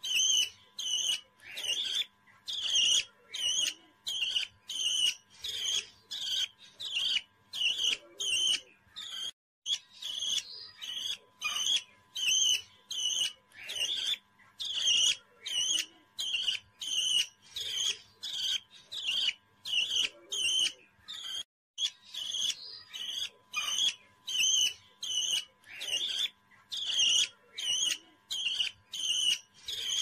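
A small parrot chirping in a rapid, even run of short high calls, about two or three a second. Twice the sound drops out to dead silence for a moment.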